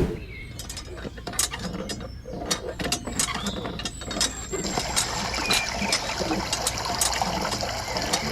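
A miniature hand water pump being worked: irregular mechanical clicks and rattles from its handle and works, joined from about halfway through by a steady hiss like water running.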